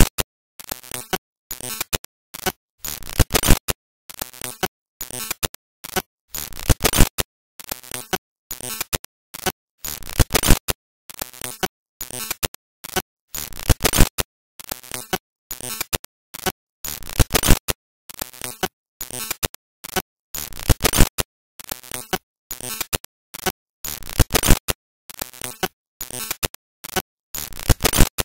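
Harsh bursts of crackling static noise that cut in and out several times a second, separated by short silent gaps.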